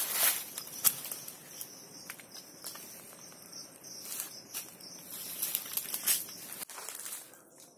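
Irregular rustling and crackling of cacao leaves and branches, loudest near the start as a ripe cacao pod is twisted off the tree. Softer rustles and crunches of dry leaves follow, fading near the end.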